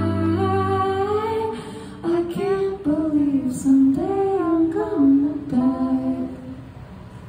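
Female lead singer of a live rock band singing through the PA, her notes sliding up and down, nearly unaccompanied once the band's held chord dies away about a second in.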